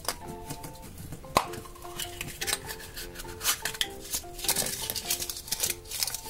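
Small plastic toy capsule from a chocolate surprise egg being handled and pried open, with sharp plastic clicks and rattles, one loud snap about a second and a half in. A light background melody plays underneath.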